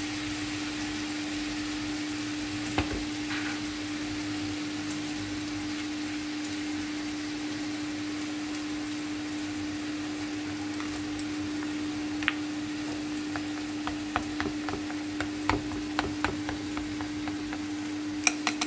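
Shrimp frying in oil, sizzling steadily, with a constant hum beneath. From about twelve seconds in, chopsticks click repeatedly against a ceramic bowl as beaten egg and chopped leek are stirred.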